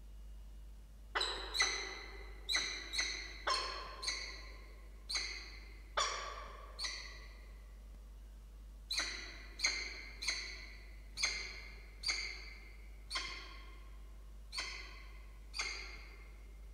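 Peregrine falcon giving a string of short, sharp calls inside the nest box, about sixteen in all at uneven spacing, some in quick pairs, each trailing off briefly.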